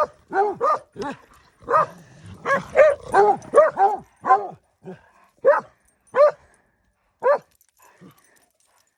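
A dog barking in a rapid run of short, high barks that rise and fall in pitch. The barks come close together at first, then space out and stop about seven seconds in.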